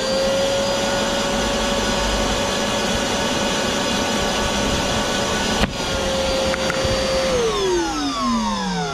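Small Ridgid portable wet/dry shop vacuum running at full speed with a steady high whine, a single sharp knock about five and a half seconds in. Near the end it is switched off and the whine falls steadily in pitch as the motor winds down.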